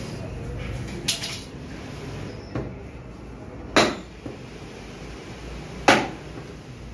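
Butcher's meat cleaver chopping through beef rib bones on a wooden chopping block: two loud chops about two seconds apart, with lighter knocks before and between them.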